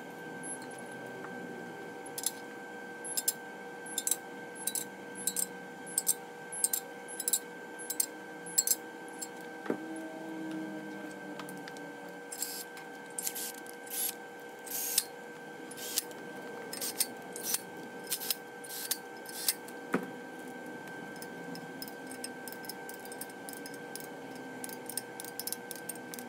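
Metal-on-metal clicking from hand tools working the main bearing cap bolts of an aluminum LS1 block, about one or two sharp clicks a second. From about twelve seconds in, short bursts of a Milwaukee cordless tool spin bolts down, then fainter ticks near the end. A steady faint hum runs underneath.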